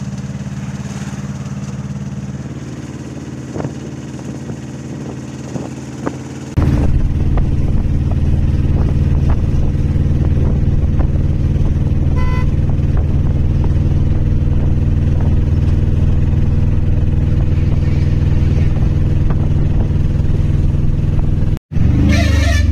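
Engine and road noise of a moving vehicle heard from inside it, steady and low; about six and a half seconds in it suddenly grows louder and stays so. A brief dropout near the end is followed by busier street noise.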